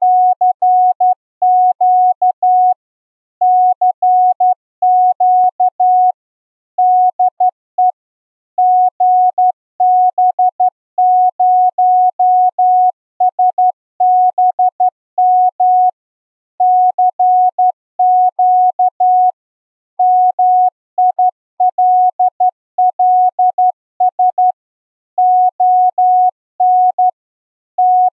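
Morse code sent as a single steady beeping tone, keyed in short and long elements grouped into characters with brief pauses between them.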